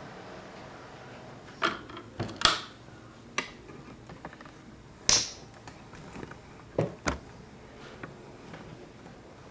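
Faint steady running of an HO scale model train, fading out, broken by about seven sharp, irregular clicks and knocks, the loudest about two and a half and five seconds in.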